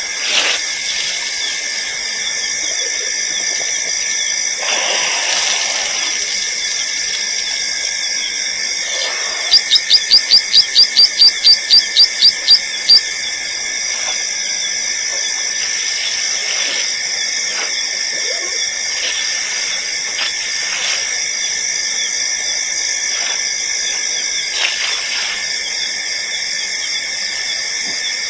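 Steady night chorus of insects, a shrill constant trill. About a third of the way in it is broken by a loud series of about a dozen sharp high chirps, about four a second.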